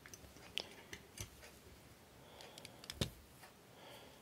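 Faint clicks and taps of a small 1/64-scale diecast model van being handled and turned over, with one sharper knock about three seconds in.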